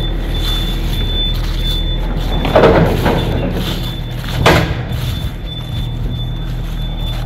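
A steady, fairly loud engine hum, with brief louder knocks about two and a half seconds in and again near the middle.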